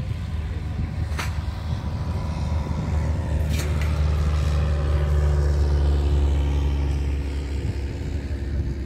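Single-engine light propeller plane flying low past, its engine drone growing louder and then dropping in pitch as it goes by, loudest about five seconds in.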